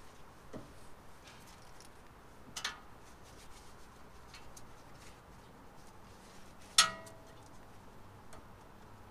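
Front brake caliper being worked off a truck's brake rotor by hand: scattered light clicks and a small knock, then about two-thirds of the way through one sharp metallic clank that rings briefly as the metal brake parts strike each other.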